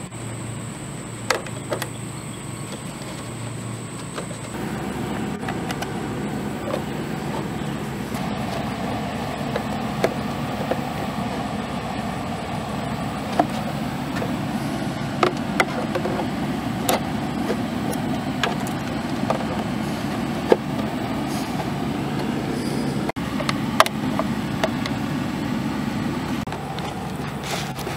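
Tin snips cutting a sheet-metal downspout elbow: scattered sharp snips and clicks at irregular intervals. Under them runs a steady low rumble that starts about four seconds in.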